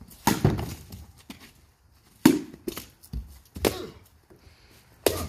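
A baseball bat smashing hollow carved pumpkins: a series of heavy wet chopping blows, about half a dozen, with pumpkin flesh splitting and chunks thudding down.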